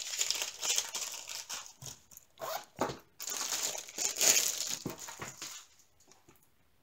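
Clear plastic packaging crinkling and rustling in uneven spells as a small bag is slid into it and handled, falling quiet about six seconds in.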